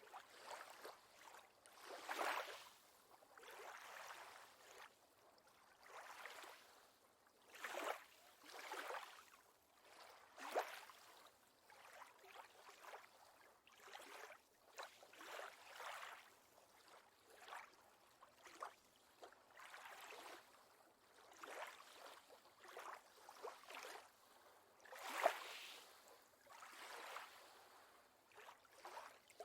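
Faint lake water lapping and splashing gently in soft, irregular surges every second or two.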